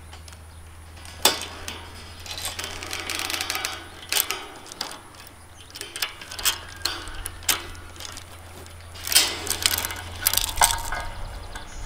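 Steel chain clinking and rattling, with scattered sharp metallic clicks from a lever-type chain fence stretcher as its tension is let off the bottom chain.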